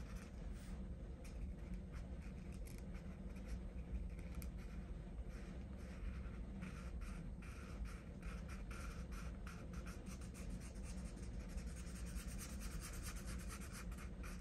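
Felt-tip marker scratching on paper in many quick, short strokes as a small shape is coloured in, the strokes coming thicker in the second half.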